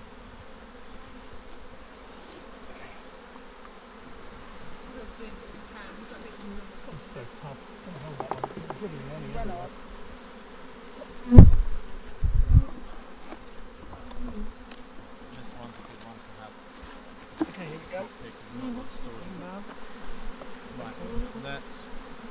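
Honey bees from an opened hive buzzing in a steady hum, with two dull thumps about halfway through.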